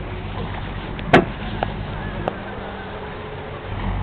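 Steady low hum of a motorboat engine on the Grand Canal, heard from a gondola over a haze of water noise. A single sharp knock comes about a second in, with two lighter clicks soon after.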